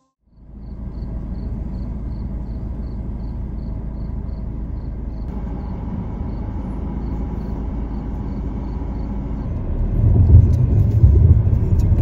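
Car running with a steady low rumble that grows louder about ten seconds in as it moves off. A faint insect chirps over it at an even pace of about three a second.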